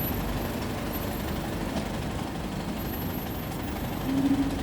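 Steady low traffic rumble from heavy road vehicles such as buses and trucks, with a brief louder low hum near the end.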